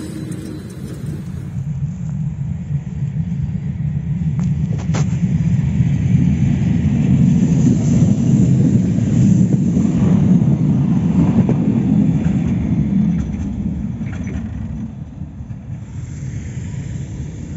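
Articulated electric tram passing close by, a low rumble of wheels on rails that swells to a peak midway and then fades away. A single sharp click sounds about five seconds in.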